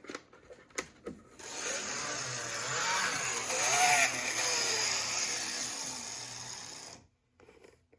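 HO-scale Tyco trolley running on the track: the small electric motor and gear drive make a steady whirring run, preceded by a few clicks. It stops suddenly about seven seconds in.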